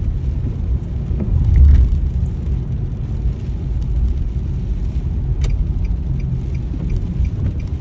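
Steady low road rumble from a moving car, heard from inside the cabin, swelling briefly about two seconds in. A single click comes in the middle, and faint regular ticking, a few ticks a second, runs near the end.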